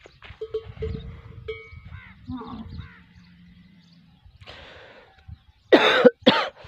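Camel herd on the move: short ringing tones like small livestock bells, with birds chirping, over a low rumble. About six seconds in come two loud harsh calls close together.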